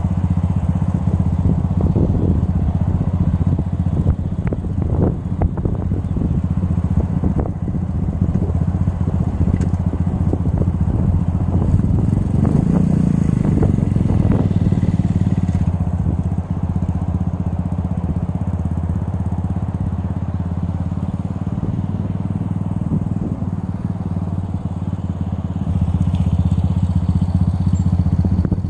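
Venom X22R motorcycle engine running at a steady speed as the bike is ridden, with irregular sharp clicks and crackles over it; it gets a little louder near the end.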